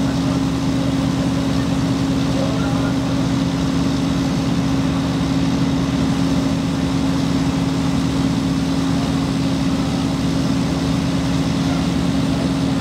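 A fire truck's engine running steadily, a constant droning hum with no change in speed.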